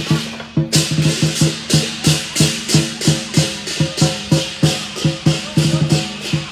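Lion dance percussion: a drum beaten with clashing cymbals in a steady, fast rhythm of about three strokes a second, with a short break about half a second in.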